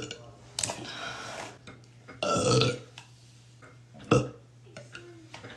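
A woman burping several times, the loudest burp about two seconds in and a short sharp one a little after four seconds.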